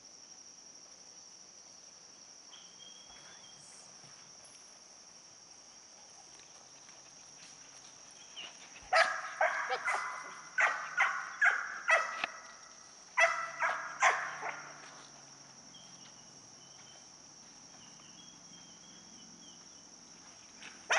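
Doberman barking: a run of about ten sharp barks starting about nine seconds in, with a short pause midway. A steady high-pitched drone runs underneath.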